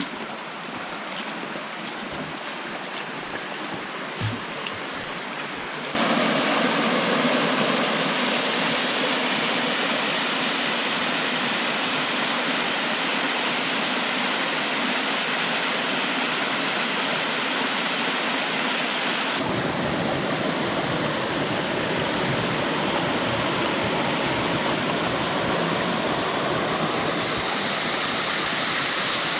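Rushing water of a stream and waterfall. A quieter stretch with a few faint ticks cuts about six seconds in to a louder, fuller rush, and the sound changes abruptly again about two-thirds of the way through.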